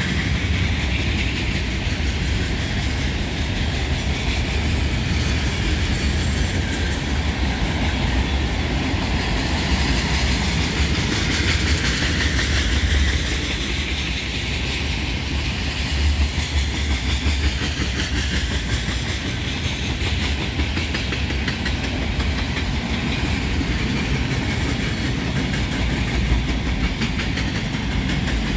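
Cars of a mixed freight train (boxcars, tank cars, centerbeam lumber cars) rolling past on the track: a steady low rumble and rushing hiss with the rapid clatter of wheels on the rails.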